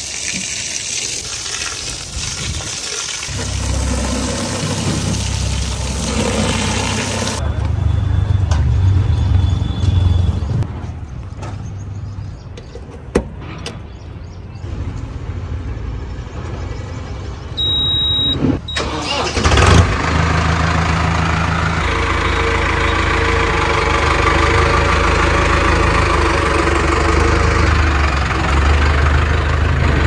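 A garden hose sprays water over a tractor for the first several seconds. A short electronic beep sounds for about a second, then the Mahindra Arjun Novo 605's diesel engine starts about twenty seconds in and runs steadily.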